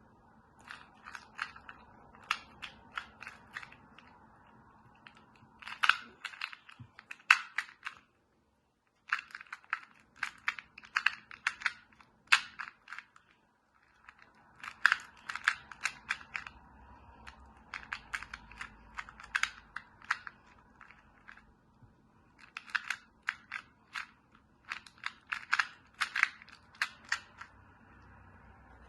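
2x2 Rubik's cube being turned by hand: quick plastic clicks of the layers snapping round, coming in rapid runs with short pauses between.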